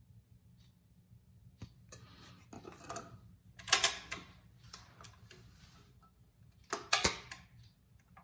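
Clicks and clatter of 45 rpm singles being handled onto the spindle of a Dual 1019 record changer as it is started, with two loud clacks, a little before halfway and near the end, the later one as a single drops from the spindle onto the platter.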